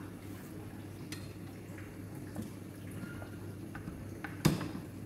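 Faint ticking and crackling of macaroni schotel cooking inside a closed double pan set on a portable gas stove at low flame, over a steady low hum. About four and a half seconds in comes one sharp click as hands work the pan's handle at the front.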